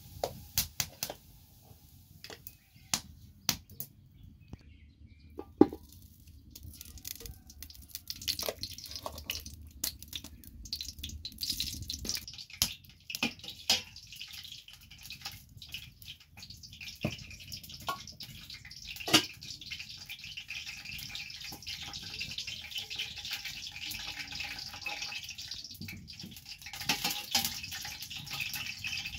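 Metal ladle and spoon clinking and scraping against aluminium cooking pots, over the crackle of a wood fire. A steady hiss joins in about two-thirds of the way through.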